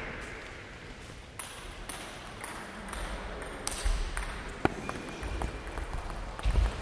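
Table tennis rally: the ball ticks sharply off the paddles and the table, one hit about every half second. The tail of applause dies away at the start, and there are a few low thumps near the end.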